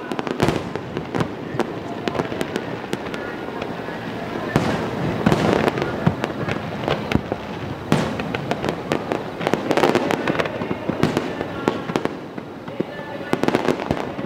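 Fireworks display: aerial shells bursting in rapid succession, many sharp bangs and crackles over a continuous rumble, heaviest around the middle.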